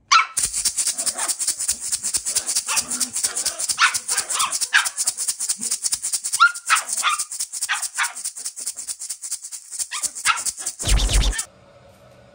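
Pair of large gourd maracas shaken fast and without a break, a steady dry rattle, while a Shetland sheepdog gives about a dozen short, high yapping barks over it. The rattle cuts off about a second before the end with a short low thump.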